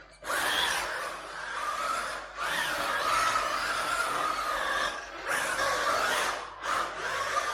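Small electric RC car driving on an indoor floor: its motor whines in short runs, the pitch rising and falling as it speeds up and slows down, with brief dips about two and five seconds in.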